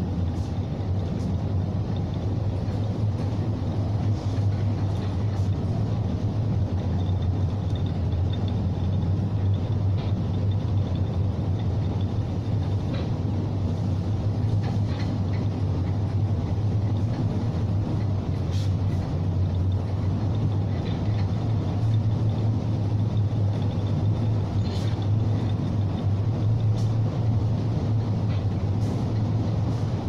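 Steady low drone of a bulk carrier under way, from its engine and hull vibration, with a rushing hiss of wind and sea over it.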